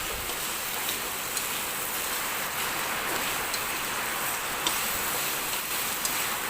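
Boiled chicken feet sizzling in hot oil with onion, garlic, ginger and chili in a frying pan, a steady hiss, with a few light clicks as they are stirred.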